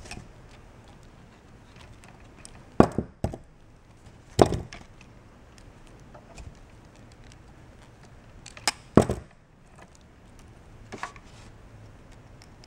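Sharp cracks and clicks from hand work on a car stereo wiring harness with insulated crimp butt connectors and a hand crimper: about six in all, the loudest a little under 3 s, around 4.5 s and around 9 s in.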